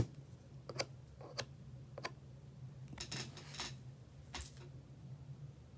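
Faint clicks and rustling of small objects being handled: a few sharp clicks in the first two seconds, then short rustles about three and four and a half seconds in, over a low steady hum.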